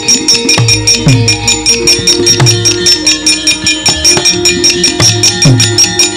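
Gamelan playing a fast accompaniment: a rapid, even clatter of the dalang's keprak metal plates, several strikes a second, over sustained metallophone tones and repeated low kendhang drum strokes that drop in pitch.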